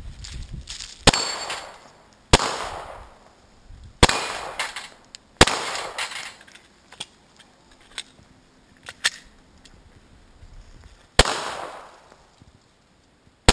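Glock 22 pistol in .40 S&W firing single shots: five loud reports, each trailing off in echo, spaced a second or more apart, with a longer gap before the last. Fainter sharp cracks come in between.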